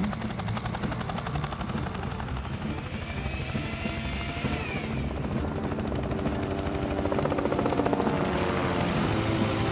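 Helicopter rotor chopping steadily, with background music coming up under it in the last few seconds.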